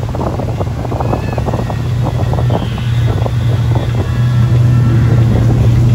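Motorboat engine running steadily under way while towing a tube, a low drone, with wind buffeting the microphone. It gets louder about halfway through.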